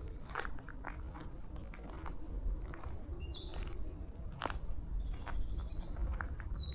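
A songbird singing a high, rapid song: a run of quick repeated notes, then a long trill from about two-thirds of the way in. Faint footsteps on a path sound beneath it.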